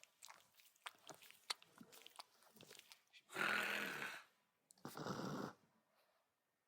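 Terrier snorting: two loud, noisy blasts of breath about a second apart in the middle, after a run of small mouth clicks and smacks.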